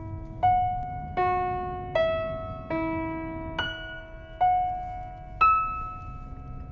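Background music: a slow piano melody, single notes struck about every three quarters of a second and left to ring and fade, over a faint low rumble.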